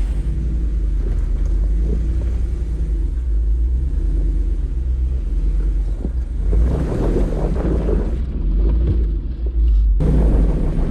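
Off-road 4x4's engine running steadily at low revs as the vehicle crawls a trail. Rougher tyre-and-terrain noise builds from about six and a half seconds in, and the sound jumps at a cut near the end.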